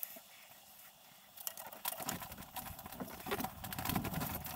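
Plastic push-fit plumbing pipe and fittings being handled and fitted: irregular rustling, light scraping and small clicks, starting about a second and a half in.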